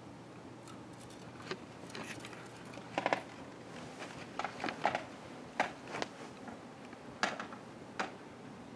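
Canary moving about a wire cage and onto its nest: scattered light taps and clicks, about ten of them, some in quick pairs, over a faint steady hiss.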